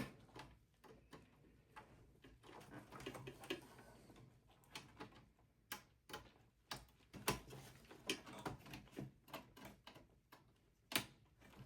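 Faint, scattered small clicks and taps of SATA power and data cable connectors and wires being handled and pushed into an optical drive inside a small-form-factor desktop case, with one sharper click near the end.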